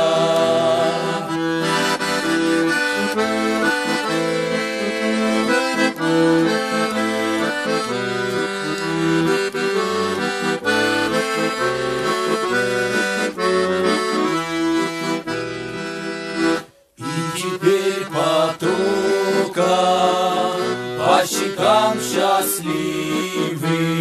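Piano accordion playing an instrumental break of held chords and melody, with no singing. The sound cuts out for an instant about two-thirds of the way through, then picks up again.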